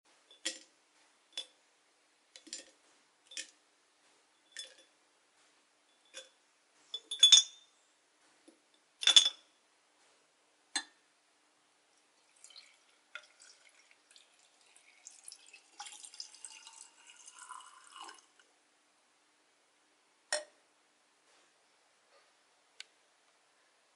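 Metal tweezers setting dried fruit slices into an empty glass mason jar, a light glassy clink each time, with two louder clinks about seven and nine seconds in. Then water poured from a glass jug into the jar for about six seconds, a tone in it rising as it fills, followed by two more single clinks.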